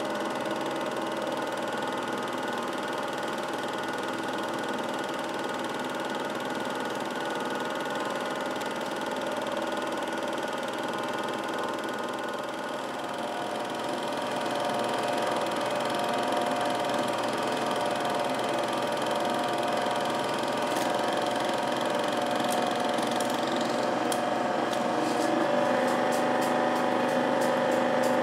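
Home-movie film projector running, a steady mechanical whir and clatter from its motor and film-advance mechanism. It gets a little louder about halfway, and a rapid run of faint ticks comes in near the end.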